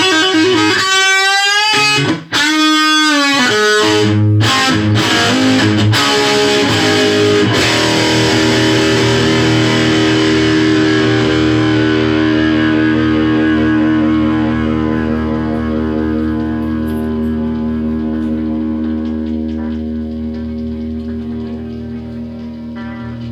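Firebird electric guitar playing a few bent notes in the first seconds, then a chord held and left to ring, slowly fading away.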